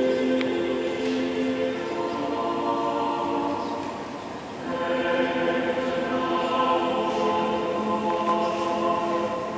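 A choir singing slowly in long, held notes. The singing dips briefly a little before halfway, then a new phrase begins.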